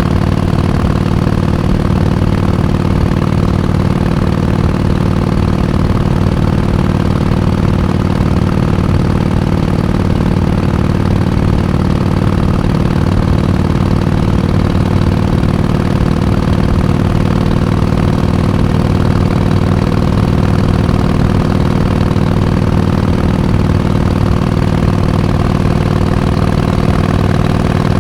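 Harley-Davidson Iron 883's air-cooled 883 cc V-twin engine idling steadily, its pitch holding even throughout.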